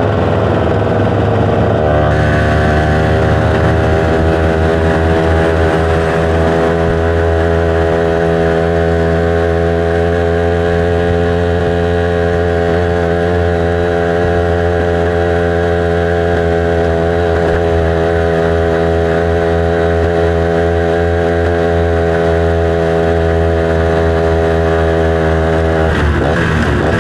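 Yamaha Y110 SS two-stroke motorcycle engine running under way at steady revs. The pitch dips over the first couple of seconds, then holds steady until the revs change about a second before the end.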